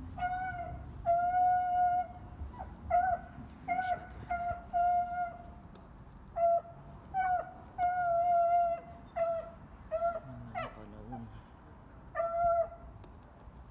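A dog whining: a long run of short, high, steady-pitched whines, with one whine that falls sharply in pitch about ten seconds in.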